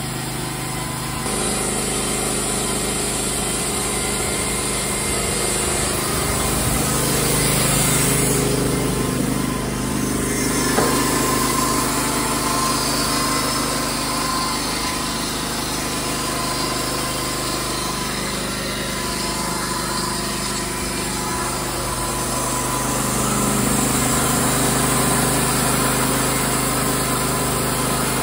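Wood-Mizer LT35 portable band sawmill running steadily, its engine pulling the band blade through a southern yellow pine cant as it saws off boards.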